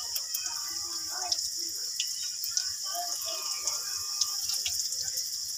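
Batter-coated eggplant deep-frying in oil in a wok: a steady sizzle with scattered small pops.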